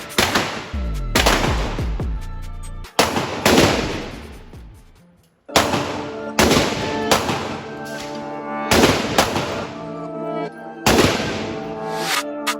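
Gunfire at a shooting range: about a dozen sharp shots at uneven intervals, each with an echoing decay, under background music.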